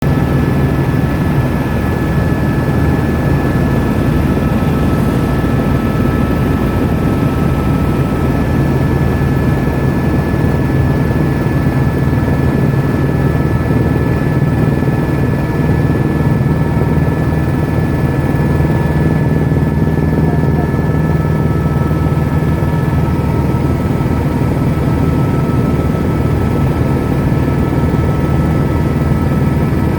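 Helicopter running steadily in flight, heard from inside the cabin: a constant low rotor and engine rumble with a steady high turbine whine over it.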